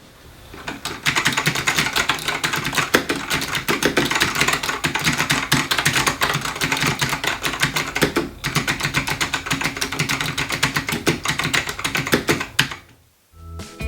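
Fast, continuous typing on a Matias Tactile Pro mechanical keyboard, its clicky Matias Click switches rattling in quick bursts, with a brief pause about two-thirds of the way through.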